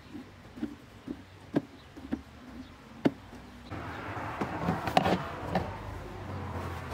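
A run of small clicks as a screwdriver works the plastic fasteners of the air filter housing, with a sharp knock about three seconds in. After that comes steadier rustling with further knocks as the tool is put down and the plastic airbox lid is handled.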